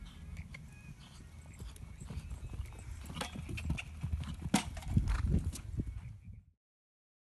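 Hoofbeats of a ridden horse moving over a sand arena, dull irregular thuds growing louder as it comes nearer, then cut off abruptly about six and a half seconds in.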